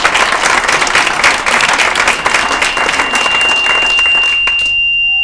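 Audience applauding, dying away near the end. A single steady high-pitched tone comes in about halfway through and holds on as the clapping fades.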